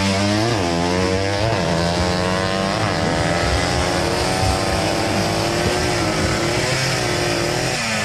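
Drag-race motorcycle accelerating hard down the strip at full throttle. The engine note climbs and drops sharply at each gear change, several times in the first three seconds, then holds a long high pull.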